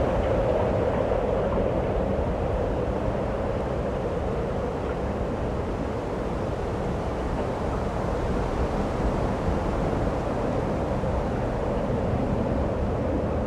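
Steady snowstorm wind blowing, a constant rushing noise that holds at much the same level throughout.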